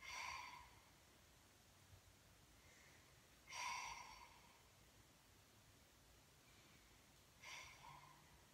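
A woman breathing slowly and faintly: three airy breaths out, each under a second long and about four seconds apart, with near silence between them.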